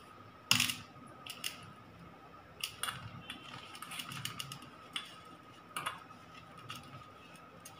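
Scattered light clicks and taps of hands working in a steel bowl as a cutlet is pressed into breadcrumbs, about seven sharp clicks at irregular intervals, the loudest about half a second in. A faint steady high hum runs underneath.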